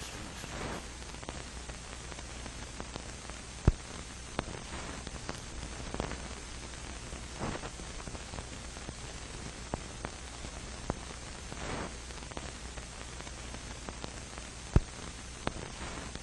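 Steady static hiss with a low hum underneath, scattered faint crackles, and two sharp pops, one about a third of the way in and one near the end.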